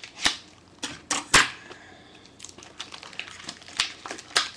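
Cellophane wrap on a trading-card blaster box being cut open with a knife: a few sharp clicks, the loudest about a second and a half in, then softer plastic crackles and one more click near the end.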